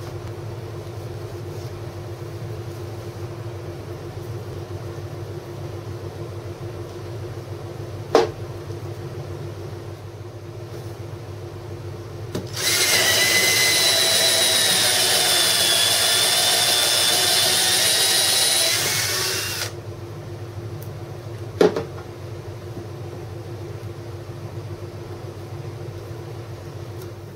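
Cordless drill running steadily for about seven seconds as it bores through the centre of a hand-held stack of wooden discs. A sharp knock comes a few seconds before it and another a couple of seconds after, over a steady low background hum.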